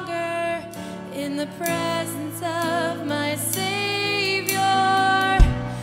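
Slow worship song played by a band, with a melody line that wavers like a sung voice over sustained low chords. A low thump comes near the end.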